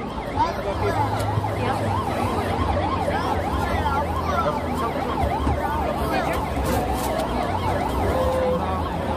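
Korean 119 ambulance siren sounding a rapid yelp, its pitch sweeping up and down several times a second without a break.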